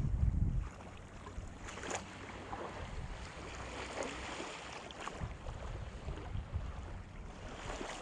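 Small waves lapping gently at the edge of a shallow sandy beach, with wind buffeting the microphone for the first half second or so.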